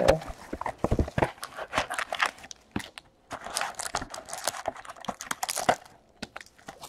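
Trading-card pack wrappers crinkling and tearing, with cards and cardboard boxes handled and knocked together: a run of sharp crackles and clicks, thickest about three to six seconds in.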